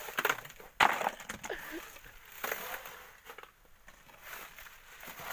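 Shovelling sand and gravel through a wire sieve into a wheelbarrow: a sharp knock about a second in, then irregular gritty scrapes and rattles of stones.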